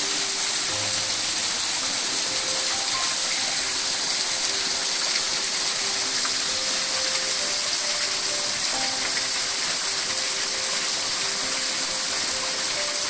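Small waterfall, thin streams of water falling over rock ledges and splashing into a pool, a steady hiss. Soft background music of held notes plays over it.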